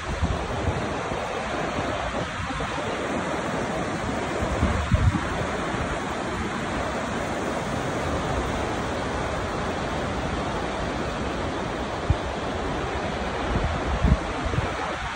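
Steady rushing noise of Takakkaw Falls, a tall mountain waterfall, heard as an even hiss of falling water, with a few brief low thumps of wind on the microphone about five seconds in and again near the end.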